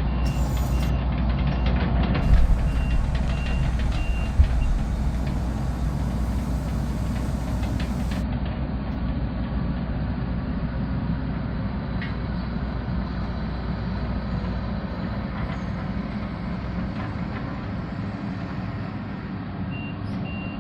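Excavator's diesel engine running steadily under load, with a repeated beeping alarm for the first few seconds and again near the end. Two sharp knocks stand out about two and four seconds in.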